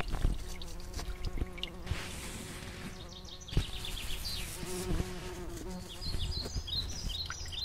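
A flying insect buzzing steadily with a slightly wavering pitch, joined by short bird chirps in two runs, about halfway through and near the end.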